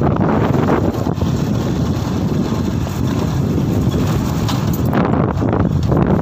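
Wind buffeting the microphone of a camera riding on a moving vehicle, a loud steady rumble with the vehicle's running noise underneath.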